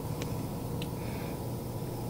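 Faint clicks and a soft rustle of a hand working back-probe pins into an injector wiring-harness connector in an engine bay, over a steady low hum.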